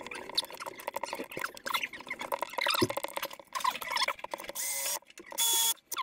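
Irregular scraping and clicking of hand work at a plasterboard wall corner, then near the end two short bursts of a Milwaukee cordless drill-driver working on a screw head that blocks the cable route.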